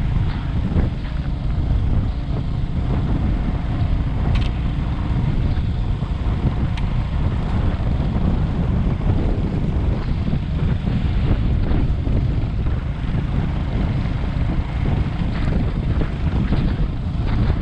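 Steady wind rush buffeting the microphone on a moving motorcycle, with the ride's rumble underneath.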